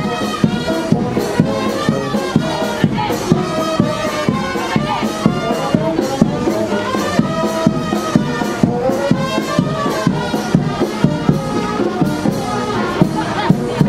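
Brass band music with a steady drumbeat, the horns playing a melody over it.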